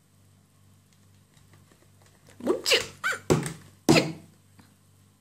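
Ginger kitten biting at the top edge of a laptop screen: a quick run of about five short, loud sounds between two and a half and four seconds in, ending in two sharp knocks.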